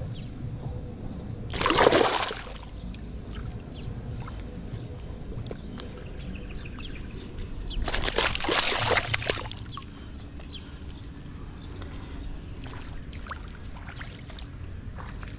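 Water sloshing and splashing as a woven bamboo fish trap is handled in shallow water, with two louder splashes: a short one about two seconds in and a longer one from about eight to nine and a half seconds in.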